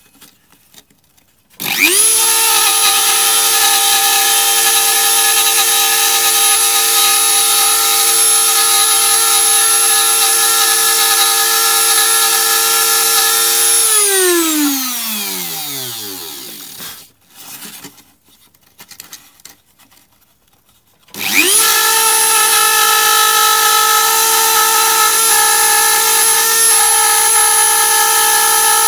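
Dremel rotary tool with a routing bit, started by a foot switch and reaching full speed within a second as a steady high whine while routing a printed circuit board. About fourteen seconds in it is switched off and winds down, its pitch falling. About seven seconds later it starts again and runs steadily.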